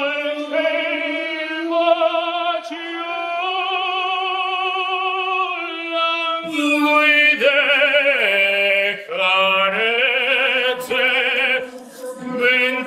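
A man singing alone in long, held notes with a wavering vibrato, dropping lower about two-thirds through and then rising again.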